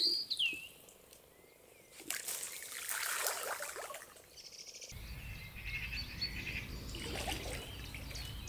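Small birds chirping at the waterside, with a rush of splashing water from about two to four seconds in. From about five seconds in a steady low wind rumble sets in under further chirping calls.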